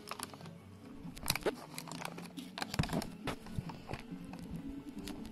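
A cat crunching and chewing a treat: an irregular run of small crunches and clicks.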